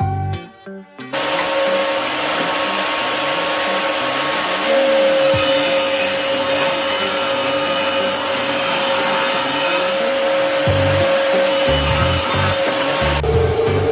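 A handheld electric power tool running steadily on wood, with a constant hum under a rough, noisy texture. It gets louder about five seconds in. Background music plays at the start and faintly underneath.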